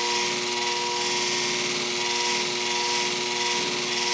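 Shear-sharpening machine's spinning polishing disc with a hair-shear blade held against it: a steady hiss of the blade being polished, over the machine motor's steady hum.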